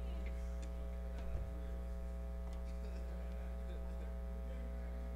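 Steady electrical mains hum in a pause in the music, with a few faint ticks and a soft low bump about a second and a half in.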